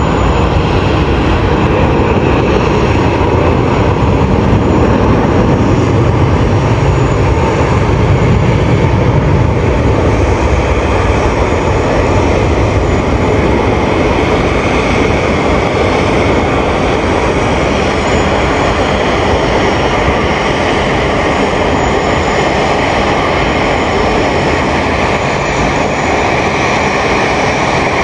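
Qantas Airbus A380-842 departing, its four Rolls-Royce Trent 900 jet engines producing a steady, loud roar. The deep rumble is strongest about eight seconds in and eases slightly afterwards.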